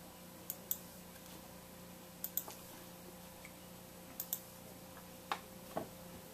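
Computer mouse clicking: three quick double clicks a couple of seconds apart, then two single clicks, over a faint steady electrical hum.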